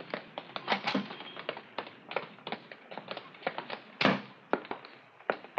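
Radio-drama sound effect of footsteps: a quick, irregular run of taps as several men walk, with one louder thump about four seconds in.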